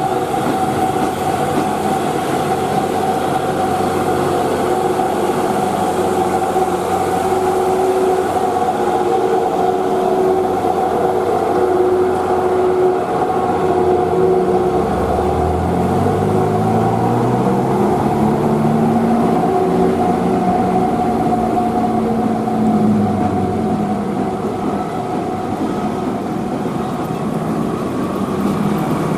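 Mitsubishi Fuso heavy truck's diesel engine labouring uphill at a steady pitch, a sustained drone. About halfway through, a second engine's revs climb in several steps, hold, then fall away as a loaded pickup accelerates up the grade.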